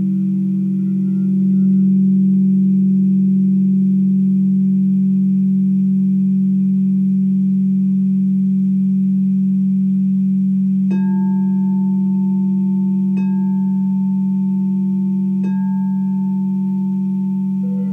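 Quartz crystal singing bowls: a large bowl holds one deep, steady ringing tone that slowly fades, and a smaller bowl is struck with a mallet three times about two seconds apart in the second half, adding a higher ringing tone over it.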